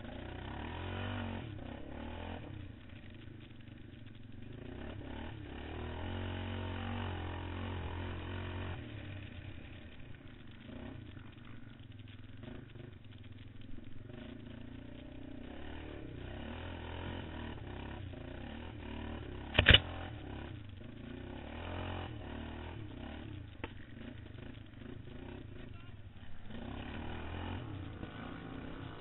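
Quad bike (ATV) engine heard muffled from an onboard camera while racing over a rough dirt track, revving up and easing off again and again. A single sharp knock about twenty seconds in is the loudest sound.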